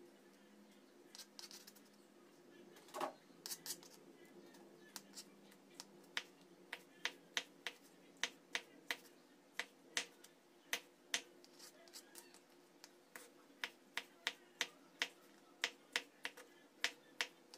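Knife slicing a large red chili on a plastic cutting board: sharp taps of the blade on the board, a few scattered at first, then a steady run of about two a second.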